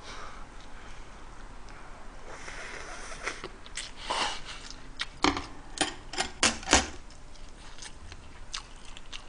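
A run of short sharp clicks and crackly rustles, loudest and most frequent a little past the middle, over faint room noise.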